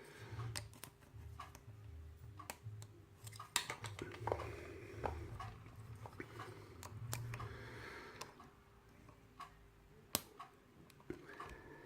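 Faint scattered clicks and light scraping from a hook pick and tension wrench working the pin stack of a Yale night latch cylinder, over low handling rumble.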